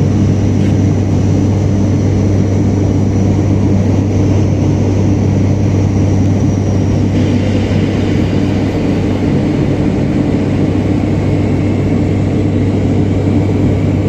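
Steady engine and airflow noise of an airliner heard inside the cabin in flight: a constant low hum with a broad rush over it. A faint high whine fades out about halfway through.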